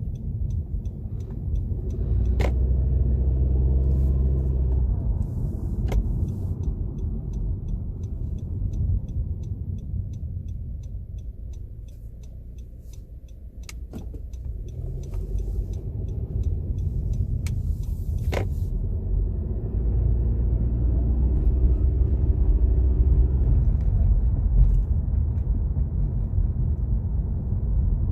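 Honda Civic 1.5-litre turbo with CVT under way: a low rumble that swells, fades about halfway through, then swells again, with a faint whine over it while it builds. The owner is unsure whether the whine comes from the CVT or the turbo, and the car otherwise runs normally.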